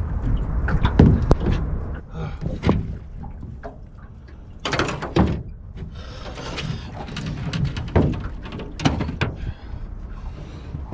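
Scattered knocks and thumps as a landing net holding a tangled fish is worked against the side of a small metal boat, with a couple of longer, noisier bursts around the middle, over a steady low rumble.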